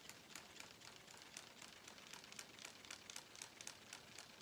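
A foil toy pinwheel spinning as it is blown with a long, slow breath through pursed lips, giving a faint, fast ticking of about four or five ticks a second.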